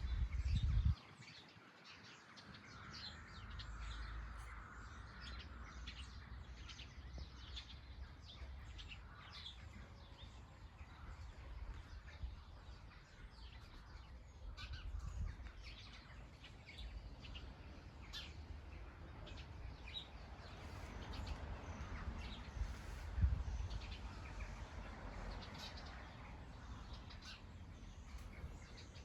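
Small birds chirping and calling on and off, short high notes scattered throughout, over a low steady rumble. A louder low rumble cuts off suddenly about a second in.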